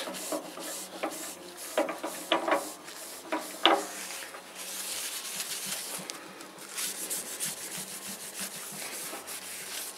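Paper cloth rubbing black embellishing wax into a sycamore bowl turning on a wood lathe: a steady scratchy hiss of cloth on wood, with a low steady hum underneath. There are a few short squeaks in the first four seconds.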